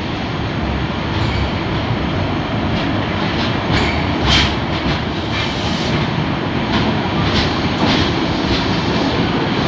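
Passenger train passing close by on the next track: a steady rumble of coaches on the rails with sharp wheel clicks over rail joints at uneven intervals.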